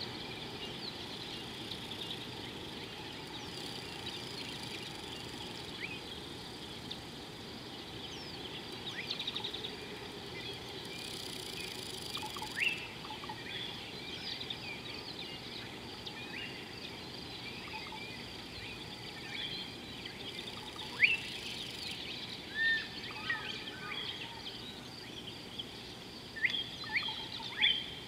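Wild birds chirping and calling over a steady, high-pitched outdoor background chorus. A few louder, sharp rising calls come in the second half.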